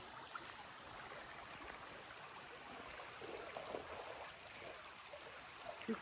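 Shallow creek water flowing gently over a rocky riffle: a faint, steady rushing.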